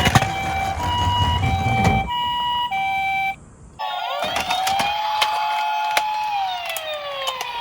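Toy ambulance's electronic siren sounding the two-tone hi-lo ambulance pattern for about three seconds. After a brief break, a wailing siren tone rises, holds and slides down, with small clicks over it.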